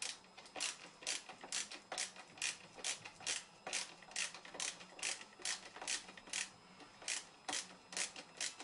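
Ratcheting screwdriver with a Phillips bit clicking steadily, about two to three sharp clicks a second, as a screw is driven home.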